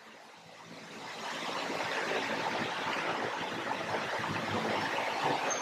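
A steady rushing noise that swells over the first couple of seconds, then holds.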